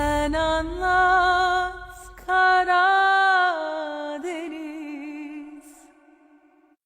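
Closing notes of the series' Turkish theme song: a single singing voice holding long notes with vibrato, with little accompaniment, briefly breaking about two seconds in and fading out near the end.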